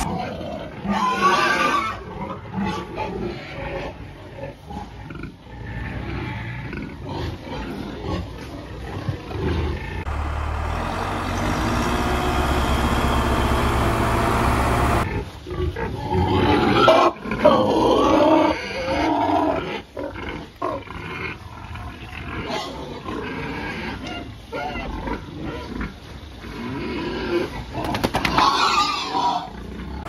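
Boar and sows in a crowded pen squealing and grunting, with loud squeals about a second in, again just past the middle, and near the end. For about five seconds a third of the way in, a steady low hum with hiss covers them.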